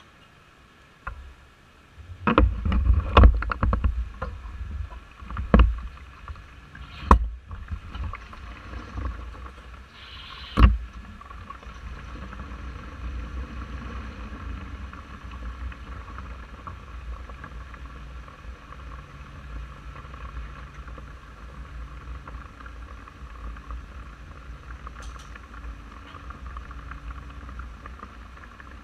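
Scooter engine starting about two seconds in, with several sharp knocks over the next few seconds, then idling steadily.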